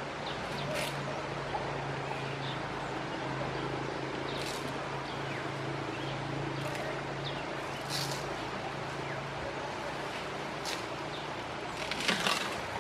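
Asian elephants feeding on palm fronds: dry leaves rustling and crackling every few seconds, with the loudest rustle near the end as an elephant lifts a frond with its trunk. A steady low hum and outdoor hiss run underneath.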